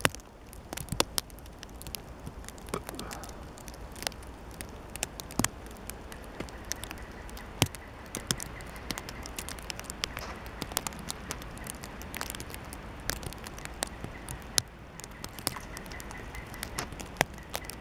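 Scattered light clicks and crackles, irregular and a few a second, over a faint steady low rumble.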